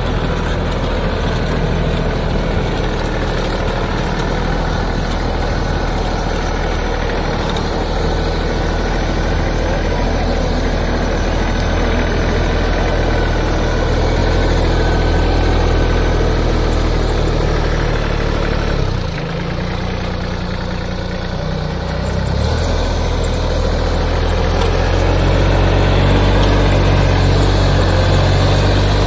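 New Holland Simba 30 mini tractor's diesel engine running steadily under load while it drags a tine cultivator through dry soil. About two-thirds of the way through the engine sound drops lower for a few seconds, then picks up again a little louder.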